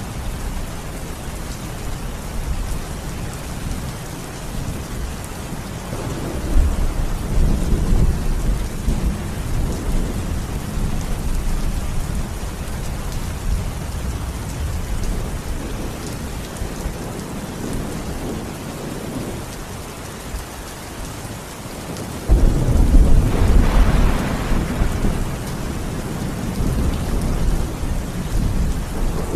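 Steady heavy rain with thunder: a low rumble swells about six seconds in and rolls on for a few seconds. About two-thirds of the way through, a louder, sharper clap of thunder breaks in and rolls off over several seconds.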